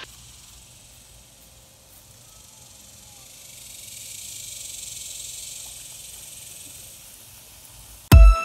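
Faint, steady hiss of a lawn sprinkler's water spray, swelling a little in the middle. Near the end, electronic dance music with a strong beat cuts in loudly.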